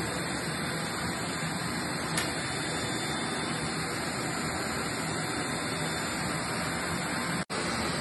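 Stick vacuum cleaner running with a steady rushing hiss as its upholstery nozzle cleans a fabric sofa cushion. The sound drops out for an instant near the end.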